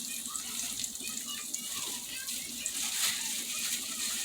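Food frying in a hot pan: a steady sizzle with scattered crackles and popping.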